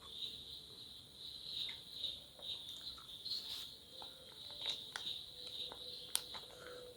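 Crickets chirring steadily in the background, pulsing about twice a second, with scattered small clicks and chewing sounds of someone eating close to the microphone.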